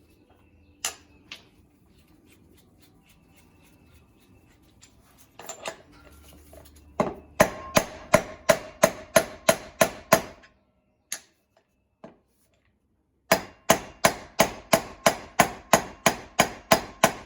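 Hammer tapping a new wheel bearing into its bore, metal striking metal with a ringing tone. Two runs of quick, even taps, about four or five a second, the second starting about 13 seconds in, after a couple of single knocks about a second in; the chilled bearing is a tight fit going in.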